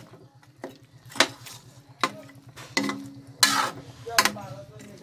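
Metal spatula scraping and clanking against a metal wok while braised pork hocks in their sauce are stirred, about six sharp knocks under a second apart, over a low steady hum.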